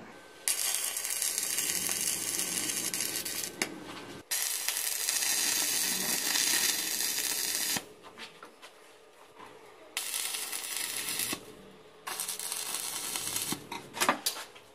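Homemade abrasive chop saw's cut-off disc cutting through a metal rod, in loud stretches of a few seconds with quieter gaps between.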